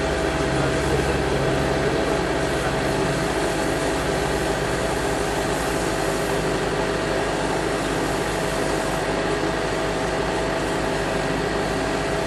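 A steady engine runs without change, most likely driving the pump that feeds the hoses, under a constant hiss of high-pressure water jets spraying onto the street.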